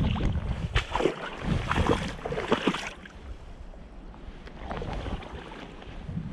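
Steps wading and splashing in shallow lake water, busiest in the first half, easing off, then picking up again near the end, with wind rumbling on the microphone.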